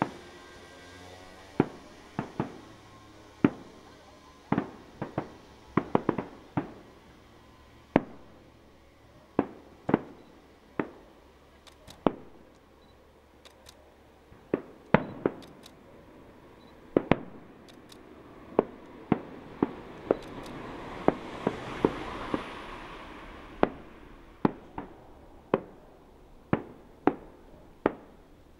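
Aerial firework shells bursting one after another: sharp bangs at uneven spacing, about one or two a second, some in quick doubles and triples. A hissing swell rises and fades about three-quarters of the way through.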